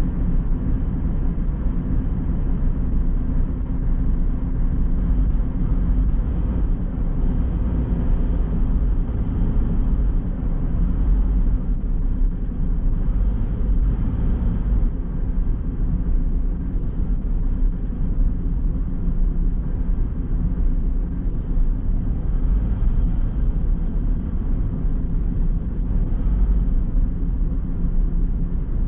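A car driving along a road, with a steady low rumble of road and engine noise that keeps an even level throughout.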